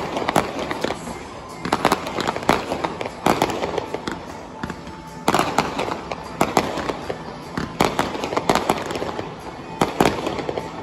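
Aerial fireworks shells bursting overhead in a dense, irregular string of sharp bangs, several a second, with the reports coming in clusters.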